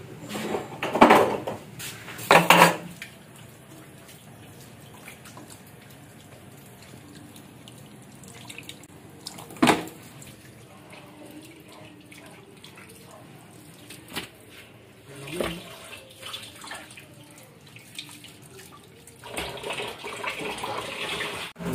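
Kitchen tap running in a thin stream into a stainless steel sink while raw pork ribs are rinsed by hand in a plastic basin. There are a few clattering knocks in the first few seconds and a sharp knock about ten seconds in. The water splashes louder near the end.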